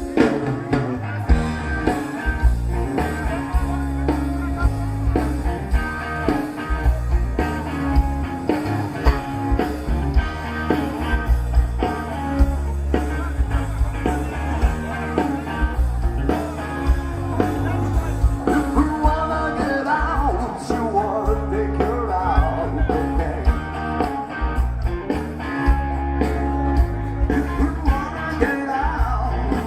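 A rock and roll record playing: a song with singing, guitar and a steady beat, with the vocal line strongest in the second half.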